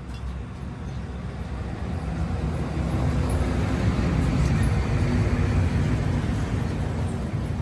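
Low mechanical rumble that grows louder over the first few seconds and eases off near the end.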